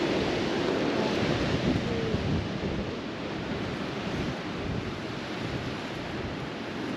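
Strong wind buffeting the microphone: a steady rushing rumble that eases slightly after about two and a half seconds.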